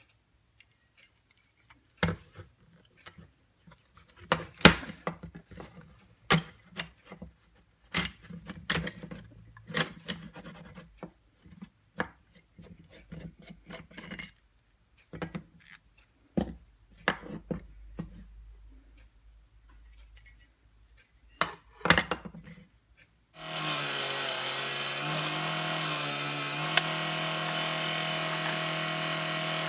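Hand work on tool parts: irregular knocks, clicks and scraping. About three-quarters of the way in, an electric power tool switches on and runs steadily to the end.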